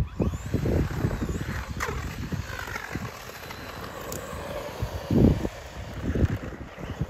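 A 1:16-scale remote-control truck driving, its small coreless electric motors whining up and down under low rumble and repeated thumps; the loudest thump comes about five seconds in.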